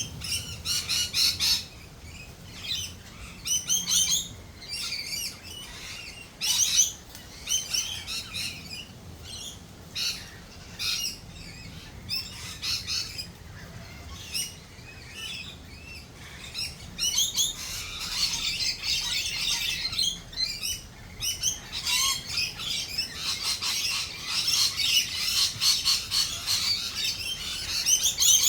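Several Australian native birds calling, with short repeated chirps and squawks; from a little past the middle the calling thickens into a dense, continuous chatter.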